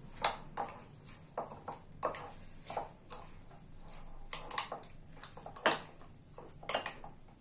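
A spoon scraping and clinking against a bowl while flattened rice (chura) and curd are stirred together, in irregular taps, a few louder than the rest.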